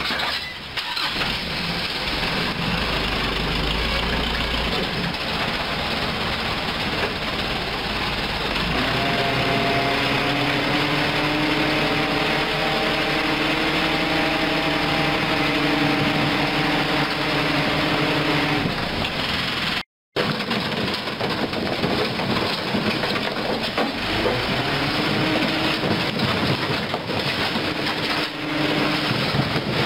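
Mitsubishi Colt dump truck's engine running under load while the hydraulic hoist raises the tipper bed. A steady whine rises in pitch and then holds for several seconds, and after a brief break it rises again as the bed lifts further and rocks start to slide out.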